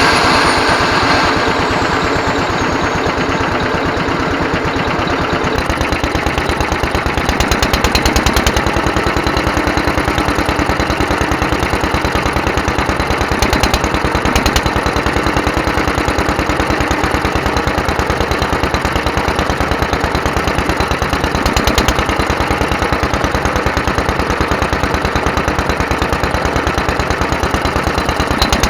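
Petter AS stationary engine running steadily on its rebuilt Solex 26 FV carburettor, with an even, regular beat: the carb is working. A loud rushing noise at the start dies away within the first couple of seconds.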